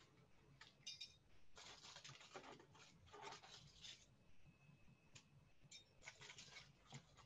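Near silence with faint scattered clicks and short scratchy rustles, heaviest in the middle and near the end.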